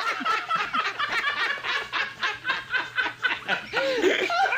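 People laughing after a joke's punchline, a quick run of ha-ha pulses that ends in a swooping, drawn-out vocal sound near the end.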